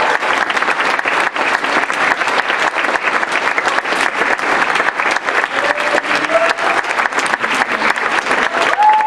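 Audience and cast applauding: dense, steady clapping, with a few voices calling out in the middle.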